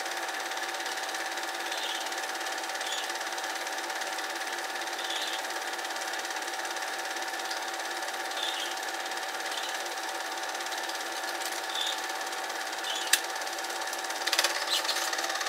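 Cine film projector running: a steady mechanical whirr with a constant hum, broken by a sharp click near the end and a few smaller clicks just after.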